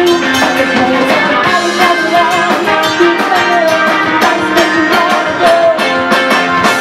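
Live rock band playing loud: a woman sings into a microphone over electric guitar and a drum kit, with a steady beat of drum and cymbal hits.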